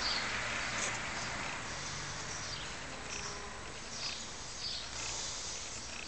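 Outdoor ambience: a steady hiss with scattered short, high bird chirps.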